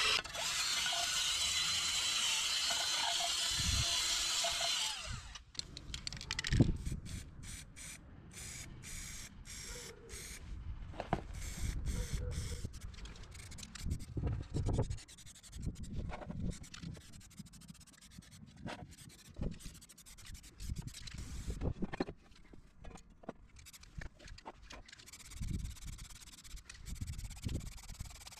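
Cordless drill spinning a wire brush against a perforated sheet-metal bracket, a steady harsh scouring that stops abruptly about five seconds in. After that come quieter scattered knocks and scrapes as the metal pieces are handled on cardboard, and near the end a light hiss from an aerosol spray can.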